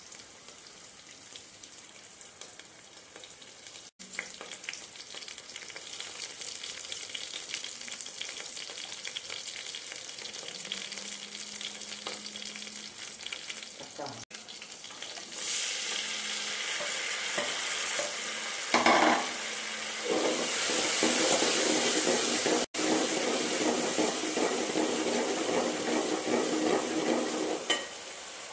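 Sliced onions frying in hot oil in an aluminium pot, a steady sizzle that turns clearly louder about halfway through as chopped tomatoes go into the pot. A brief clatter about two thirds in.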